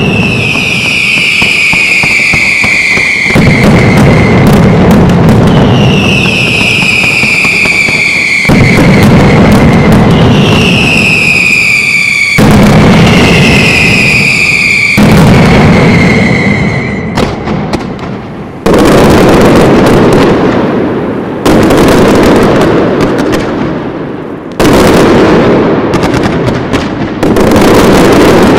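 Loud professional fireworks display: a dense crackle and rumble of bursts with several whistling fireworks, each a whistle falling in pitch over about two seconds. From a little past halfway, a run of heavy blasts about three seconds apart, each starting suddenly and fading.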